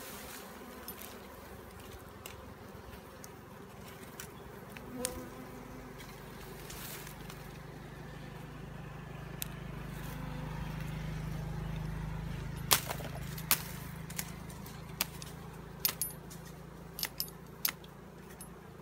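Wild honeybees buzzing in a steady low hum around their exposed honeycomb as it is disturbed, swelling louder in the middle. Several sharp clicks sound in the second half.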